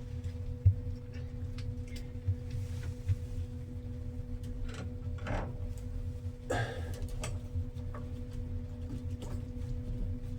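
Faint clicks and scrapes of a screwdriver and screws being worked by hand into door-closer hardware, with two short scraping sounds about five and six and a half seconds in, over a steady low hum.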